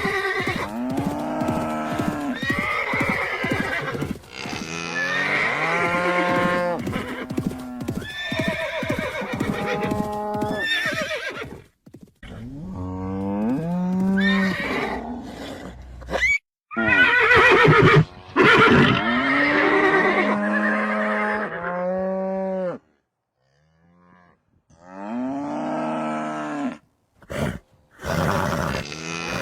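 Horses neighing and whinnying: a series of loud calls with gliding pitch, separated by a few short silent gaps.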